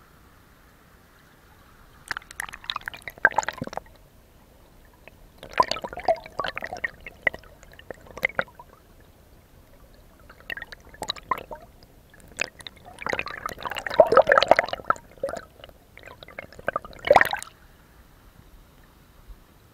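Water splashing and sloshing in five irregular bouts, each a quick run of crackly splashes, with quiet between them.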